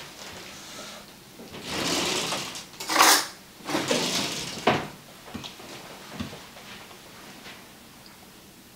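A kitchen drawer sliding open and shut, with a clatter of utensils as a spoon is fetched, ending in a sharp knock. A few faint clicks follow.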